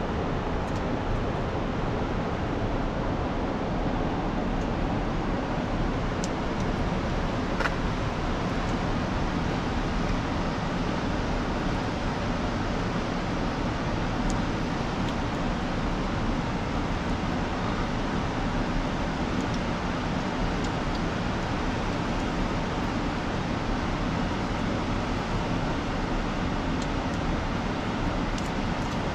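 Steady rushing background noise, with a few faint crackles from a small wood fire.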